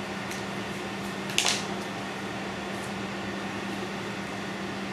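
One short, sharp snip about a second and a half in, from scissors cutting a piece of heat shrink tubing, with a few faint ticks of handling. Under it runs a steady low hum.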